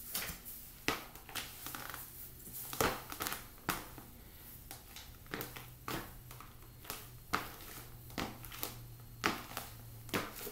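Footsteps of black leather ballet flats on a ceramic tile floor: soft taps and scuffs of the soles, unevenly paced at one to two steps a second.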